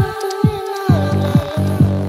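Electronic dance music: a steady four-on-the-floor kick drum a little more than twice a second under a sustained bass and held synth lead notes, which slide down in pitch a little after a second in.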